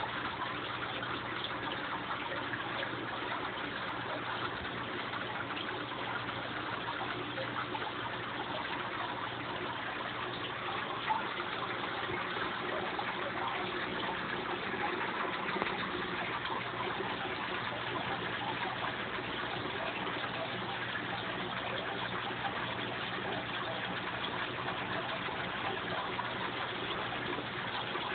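Aquarium water noise: a steady hiss and splashing of air bubbles rising through the tank, over a low steady hum from the tank's pump.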